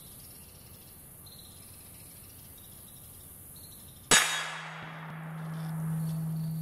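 A rifle bullet strikes a hanging AR500 steel target about four seconds in: one sharp, loud metallic clang that dies away over about a second, followed by a low steady hum. Before the hit, insects chirp faintly.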